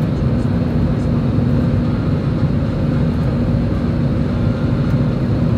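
Airbus A320 cabin noise in the climb after takeoff: a steady roar of jet engines and airflow heard through the fuselage, with a steady low hum running under it.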